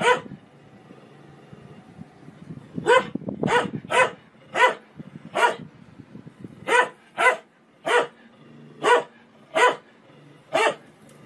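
A medium-sized dog barking, about a dozen short, sharp barks in ones and pairs with uneven pauses, after a pause of nearly three seconds near the start.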